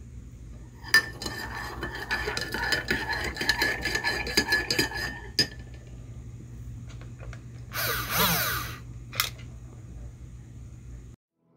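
Metal spoon stirring coffee in a ceramic mug: a fast, ringing run of clinks against the sides for about four seconds. Later, a brief rush of noise and a single click.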